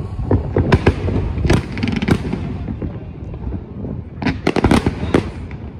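Aerial fireworks bursting: a rapid series of sharp bangs and crackles over a low rumble, with a dense cluster of bursts about four to five seconds in.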